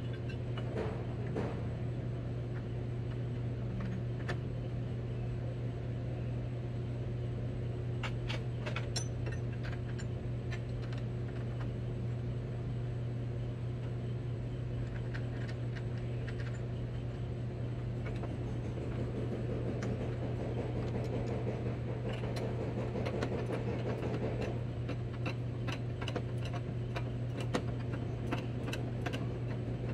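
Light metallic clicks and taps of a steel combination wrench on the nuts as the headlight bracket is tightened onto the locomotive's smokebox front. They come in scattered clusters over a steady low hum.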